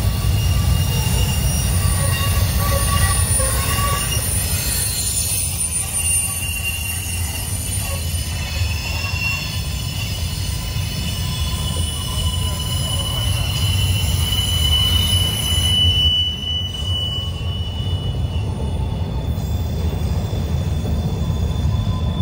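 Freight train rolling past with a steady deep rumble and thin, high-pitched wheel squeal, the squeal loudest about fifteen seconds in.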